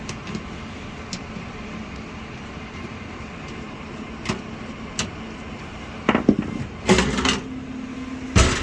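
A gas furnace's sheet-metal access cover being handled and taken off: a few light clicks over steady running noise, then a run of metal clatters and knocks from about six seconds in, with a steady hum coming in near the end.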